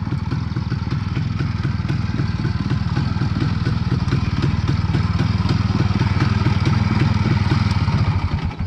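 Izh Planeta 4 motorcycle's single-cylinder two-stroke engine running steadily, gradually getting louder, then dropping away sharply near the end.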